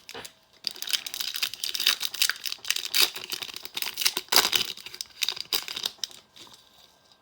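Plastic trading card pack wrapper crinkling and tearing as the pack is opened by hand, a dense run of crackles lasting about five seconds, loudest a little past the middle.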